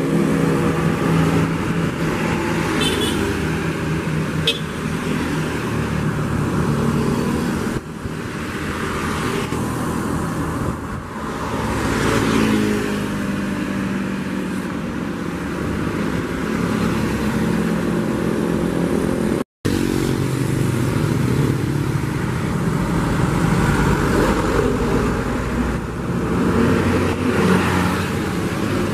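Diesel coach buses running past on the road, with the engine note rising and falling, among passing cars and motorcycles. The sound cuts out briefly about two-thirds through.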